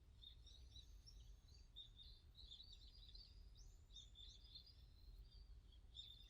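Faint birdsong: several small birds chirping and trilling in quick, overlapping high phrases, over a low steady rumble of outdoor background noise.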